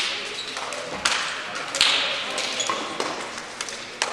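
Hand slaps from players high-fiving in a post-match handshake line: several sharp claps about a second apart, echoing in a large gym, with a few short shoe squeaks.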